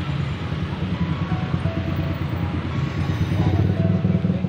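Steady low rumble of a running engine in street traffic, with faint music over it.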